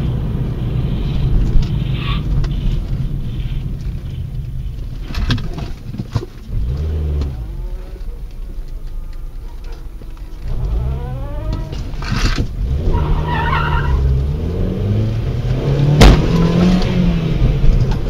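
Car engine running, revving up a couple of times, with a few sharp knocks.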